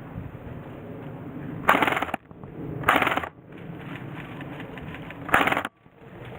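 Airsoft gun fired in three short, loud bursts, each about half a second long, the first two about a second apart and the third about two and a half seconds later.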